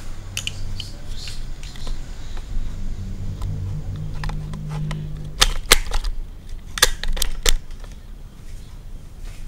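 Handling noise of a handheld video camera being set back onto its tripod: a low rubbing rumble, then five sharp clicks and knocks about five to seven and a half seconds in as it is fixed in place.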